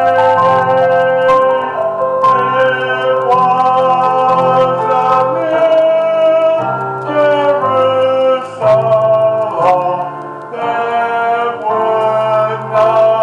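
Hymn music with keyboard accompaniment playing sustained chords that change every second or two.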